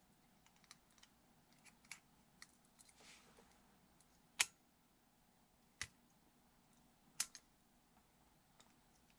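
Light scraping and small clicks of a metal pick working a spring into place inside an airsoft G19 pistol frame, with three sharper clicks about a second and a half apart in the middle.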